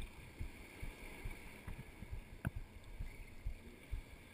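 Small waves lapping and slapping irregularly at the rocky water's edge over a steady hiss of sea and breeze, with a few sharp clicks.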